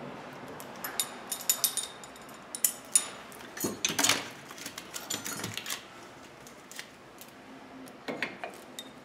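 Light metallic clinks and taps of a brake pad's steel backing plate and a hand tool against a brake caliper as the pad is fitted into it. The clinks come in scattered clusters: about a second in, around four seconds, and near the end.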